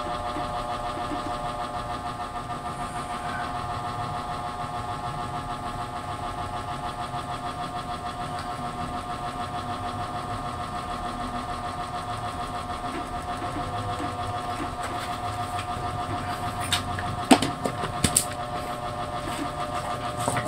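A steady machine hum with a fast, even flutter, like a small motor running. A few sharp plastic clicks come near the end as the lid is fitted onto a blender jar.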